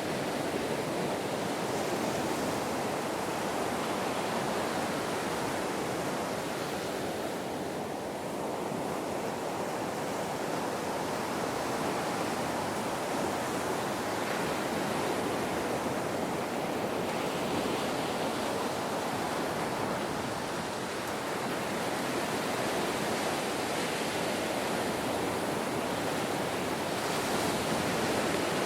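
Waves breaking and washing on a beach: a steady rush of surf that eases briefly twice and swells again near the end.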